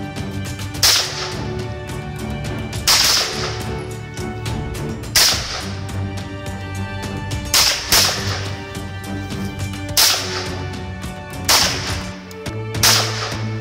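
About eight single gunshots from a handgun and an AK-pattern rifle, fired slowly one at a time, mostly about two seconds apart, each with a short echoing tail.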